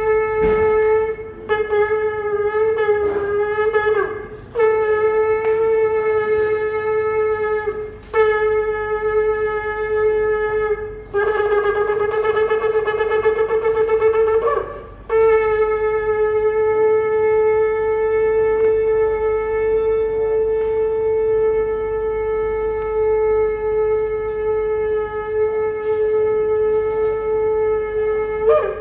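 Shofar (ram's horn) blown in a series of blasts on one pitch. First come short and broken blasts, then longer ones, then a rapid quavering blast about 11 seconds in. It ends with one long held blast of about 13 seconds.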